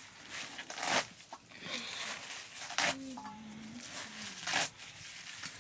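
Fresh leafy greens being torn apart by hand, a few short, crisp tearing snaps a second or two apart.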